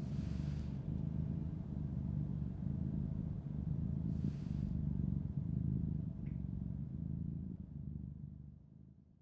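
A low, steady rumble with two brief soft hisses, fading out to silence near the end.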